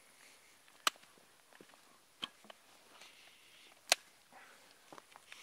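Knife blade chopping into the split end of a log to hollow it out: three sharp cracks about a second and a half apart, with faint scraping ticks between.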